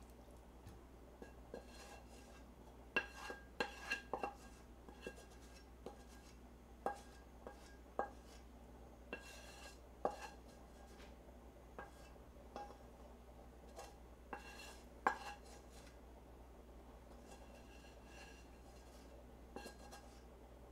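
Wooden spatula knocking and scraping against a frying pan while food is scraped out onto a plate: irregular knocks, each with a short metallic ring, in a few quick clusters.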